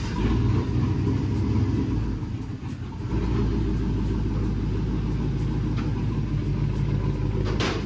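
The 1999 Chevy Silverado's 5.3 L V8, fitted with a Truck Norris camshaft, running steadily with a low rumble.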